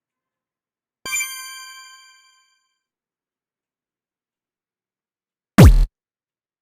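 A single bright metallic ding about a second in that rings and fades over about a second and a half, then near the end a short, loud low sound that drops in pitch.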